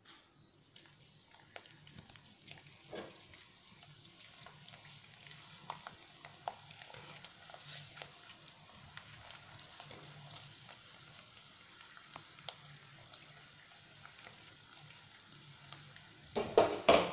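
Potato wafers deep-frying in hot oil: a steady sizzle with scattered crackles as a wire-mesh skimmer stirs them. Near the end there is a brief loud clatter.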